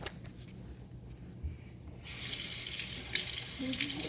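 A sink tap turned on about two seconds in, running water splashing steadily into the sink for hand-washing.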